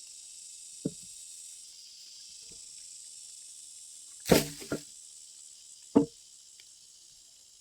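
A few sharp wooden knocks, the loudest a double knock about four seconds in and another about six seconds in, over a steady high-pitched insect chorus.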